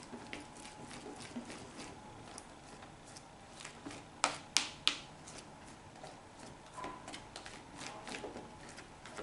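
Stirring a thick homemade slime mixture in a bowl: soft scraping and small clicks of the utensil against the bowl, with three sharper knocks about four to five seconds in.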